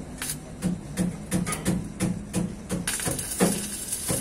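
Electric arc welding on a truck's exhaust pipe: a crackling hiss of the arc sets in a little under three seconds in. Before that come short knocks, about three a second.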